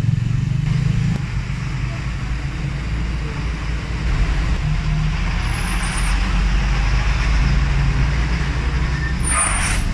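Street traffic: a heavy vehicle's engine running steadily close by, with a short sharp hiss about nine and a half seconds in.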